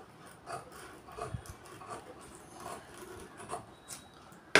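Faint, scattered rustling and small snips of cloth being trimmed lightly with tailoring scissors and handled on the cutting table.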